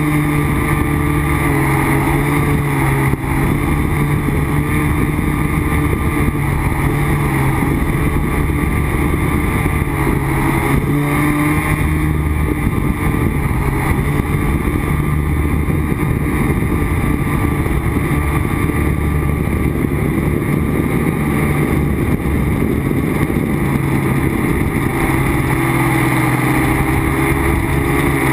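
Quadcopter's electric motors and propellers buzzing as picked up by its onboard camera, with wind rushing over the microphone. The pitch steps up and down a little as the throttle changes.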